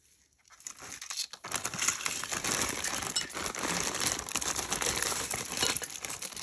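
Hands rummaging through a box of jewelry: packaging crinkling, with beads and metal pieces clinking against each other. It starts about half a second in and runs on steadily.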